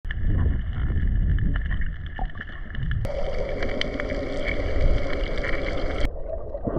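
Underwater sound picked up by a camera in a waterproof housing: a muffled low water rumble with a faint steady whine and scattered clicks. The sound changes abruptly about three seconds in and again about six seconds in.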